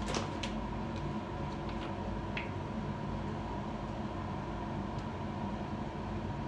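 Steady background hum of room ventilation, with a few faint light clicks from a small bottle and a cotton pad being handled.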